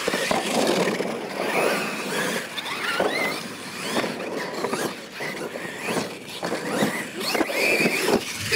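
Losi LMT radio-controlled monster trucks racing on dirt: their brushless electric motors whine, rising and falling in pitch as the drivers work the throttle, over tyre and gravel noise, with a few sharp knocks of the trucks landing and hitting bumps.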